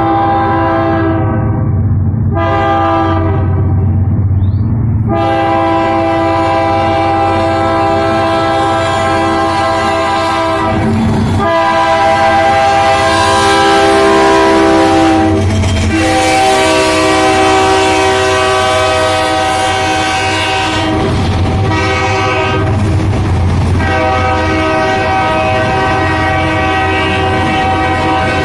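A diesel freight locomotive's multi-chime air horn sounds a long series of blasts with short breaks between them, over the low rumble of the train.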